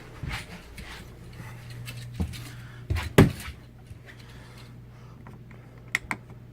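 Someone moving through the RV: a few knocks and a loud thump about three seconds in, then two sharp clicks near the end, over the steady low hum of an air conditioner running.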